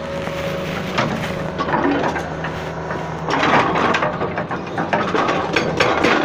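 Hydraulic excavator's diesel engine running with a steady hum. It gets louder about halfway through, and a fast clicking rattle starts near the end.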